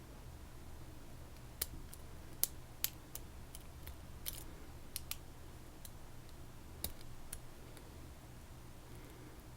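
Light metallic clicks and ticks, sparse and irregular, from a pick and tension tool working inside a Stanley S828-145 padlock.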